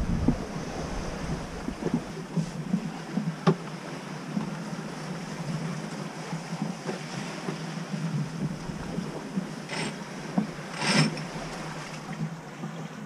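Sea water rushing along the hull of a sailing yacht under sail, with wind across the cockpit. A few short knocks sound about three seconds in and twice near the end.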